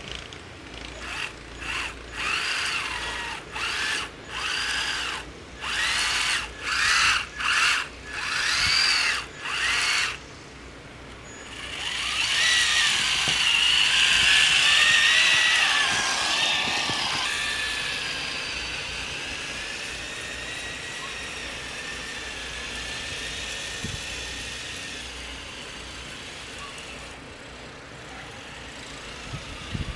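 Electric whine of an RC truck's Titan 12T 550 brushed motor and 1/16 Summit transmission driving Mattrack-style tracks in deep snow. About nine short throttle bursts, each rising and falling in pitch, are typical of working a stuck truck free. About twelve seconds in comes one longer run of whine that wavers in pitch and slowly grows fainter.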